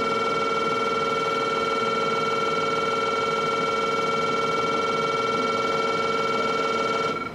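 Station departure buzzer on the platform, one steady harsh electric buzz at a constant level that cuts off abruptly near the end.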